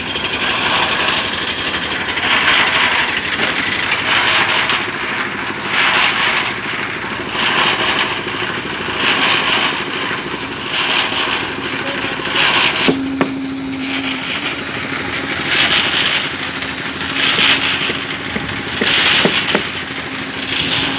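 Construction-site noise: a powered breaker or similar tool running in repeated bursts about every second and a half. A steady engine hum joins about halfway through.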